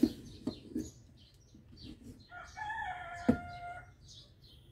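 A rooster crows once, one call of about a second and a half starting a little past two seconds in, over small birds chirping. A single sharp click sounds partway through the crow.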